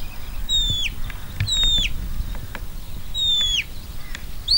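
Sheepdog handler's whistle commands to a working dog: three short whistles, each a held high note that drops away at its end.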